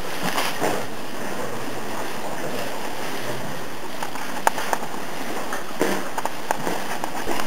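Cows pulling at and chewing silage hay in a feed bunk: rustling and crunching of hay over a steady background hiss, with a few sharp crackles about four and a half and six seconds in.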